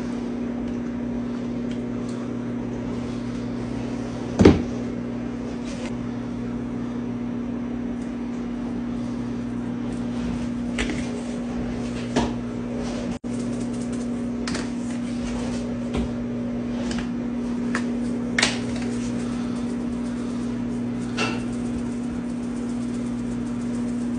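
Microwave oven running with a steady hum, with scattered light clicks and knocks of spice jars, shaker lids and a plastic bowl being handled; the loudest knock comes about four and a half seconds in.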